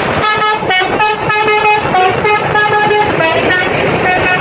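A bus's telolet horn playing a quick tune of short, steady notes that change pitch several times a second, over the noise of a passing vehicle.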